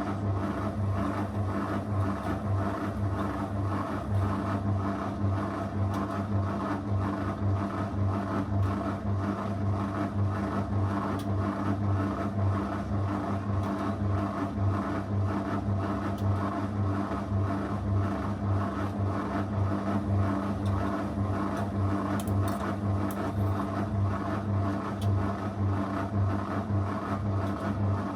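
Zanussi FL984CN washing machine running a 35° wash program, its motor giving a steady hum that pulses evenly.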